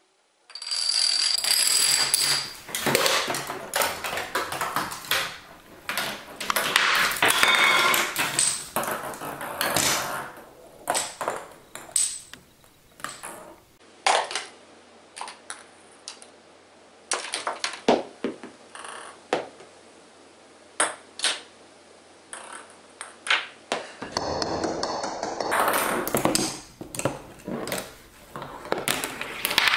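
Chain-reaction machine running: small balls rolling along plastic toy track and dominoes toppling in rapid clattering runs, with many sharp clicks and knocks of small hard objects. The background changes abruptly a few times where separate takes are joined.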